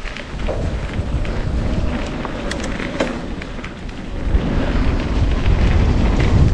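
Specialized Levo e-mountain bike rattling over dirt singletrack at speed, with heavy wind buffeting on the microphone. A few sharp clicks and knocks sound from the bike a little after two seconds in and at about three seconds.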